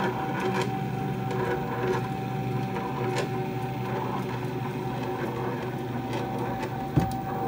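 Stepper motor turning a ball screw and driving the carriage along linear guide rails: a steady machine whine over a low hum. Beneath it is a light rattle from the recirculating balls in the new linear guide bearings, which may bed in. A single sharp knock near the end.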